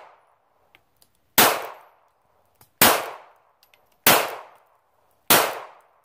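A Ruger LCP .380 pistol firing Freedom Munitions 100-grain remanufactured rounds: four evenly spaced shots about a second and a quarter apart, each a sharp crack with a short fading tail. The rounds fire and cycle without a hitch, and faint ticks come between the shots.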